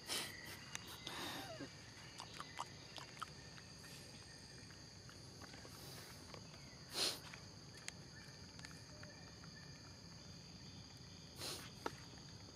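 Steady high-pitched insect drone from the forest. It runs under scattered small clicks and three short rustling bursts, near the start, about seven seconds in (the loudest), and near the end.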